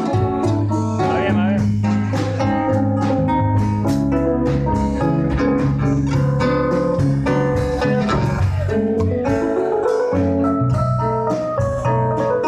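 Instrumental break of live acoustic folk music: acoustic guitars strummed in a steady rhythm under long held reedy melody notes from a harmonica.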